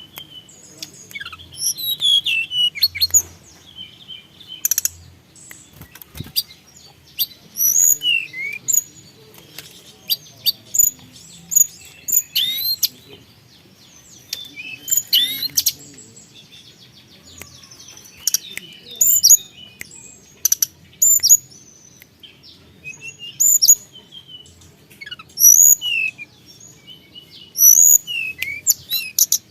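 Tledekan gunung songbird singing in repeated bursts of sharp, high whistled notes and quick slurred calls, with short pauses between phrases. It is a lively, full 'gacor' song of the kind used as a lure recording.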